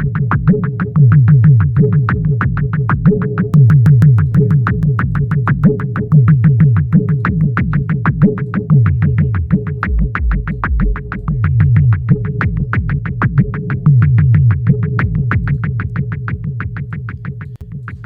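Electronic drum loop made entirely from audio feedback, played through a delay and a modulated resonant band-pass filter. It is a fast, even stream of clicky hits, about six a second, over a held mid tone, with a loud low resonant sweep that swells every couple of seconds.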